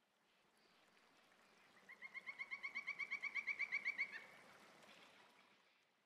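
Common nightingale singing a rapid trill of about twenty repeated notes, roughly nine a second, starting about two seconds in and stopping abruptly a little over two seconds later, over a faint hiss.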